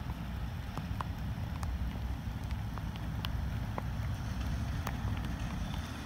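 Rain falling, with scattered sharp drop ticks a few times a second, over a steady low rumble.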